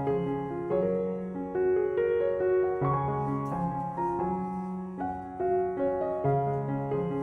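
Background piano music, a melody of notes changing about every half-second over held low notes.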